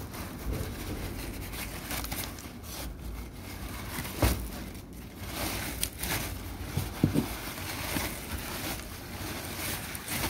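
White packing paper rustling and crinkling as paper-wrapped succulents are handled inside a cardboard box, with irregular scrapes and a sharper knock about four seconds in.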